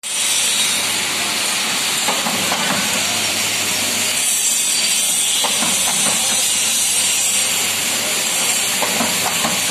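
A two-die dona pattal (paper plate and bowl) making machine running, with a steady hiss throughout.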